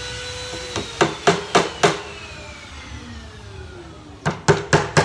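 Claw hammer driving nails into a plywood board: a quick run of five blows about a second in, then four more near the end.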